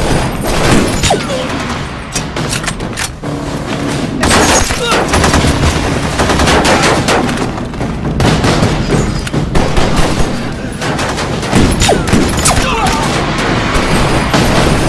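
Film gunfight: rifles firing in rapid bursts and volleys of overlapping gunshots, continuing throughout.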